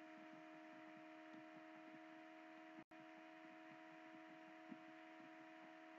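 Near silence: a faint steady electrical hum under room tone.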